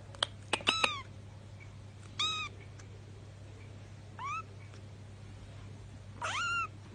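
Kitten mewing in short, high-pitched mews: a quick run of about four near the start, then single mews about two, four and six seconds in, over a low steady hum.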